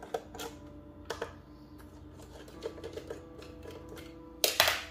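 Light plastic clicks and knocks from hands working the top plate of an iRobot Roomba i7 robot vacuum loose, with a louder clatter about four and a half seconds in.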